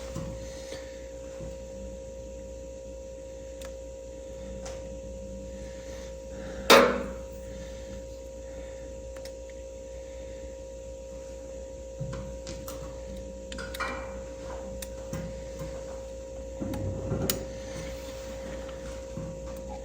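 Small knocks and clicks of hand tools at work on a tractor distributor, with one sharp knock about seven seconds in and a few lighter clicks and a rustle later, over a steady hum.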